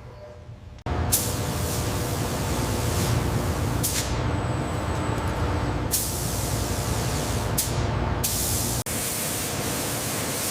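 Abrasive shot blasting: a loud, steady hissing spray that starts suddenly about a second in and runs on, changing abruptly several times and dropping out briefly near the end.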